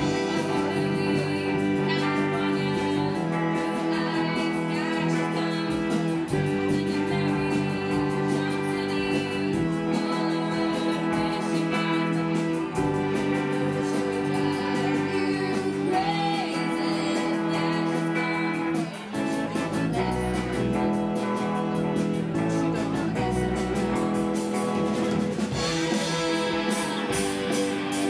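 Rock band playing live through a PA: electric guitars and drums with a lead vocal, and a brief break about two-thirds of the way through.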